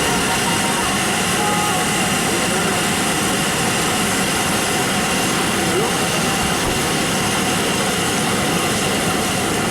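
A steady din of background voices over a continuous noise, with no single sound standing out.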